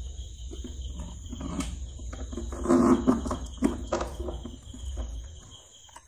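Plastic parts knocking and rubbing as a drain pipe fitting is worked into a sealed hole in the floor of a plastic tub, loudest about halfway through, over a steady high-pitched whine and a low hum.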